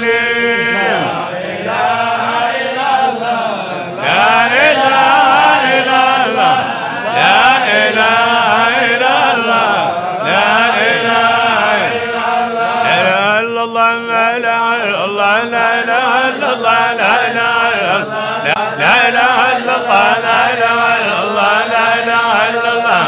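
A group of men chanting a devotional song together in unison, many voices overlapping in a long, continuous melodic line.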